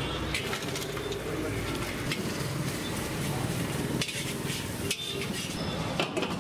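Battered chicken pieces deep-frying in oil in a kadai with a steady sizzle, while a metal ladle clinks and scrapes against the metal pan several times.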